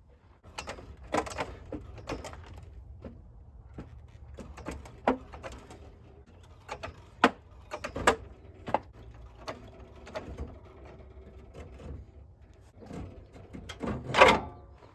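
Irregular metal clanks, knocks and scrapes of a car transmission being worked up into place under the car. A sharp knock comes about seven seconds in, and the loudest clunk, with a short ring, comes near the end.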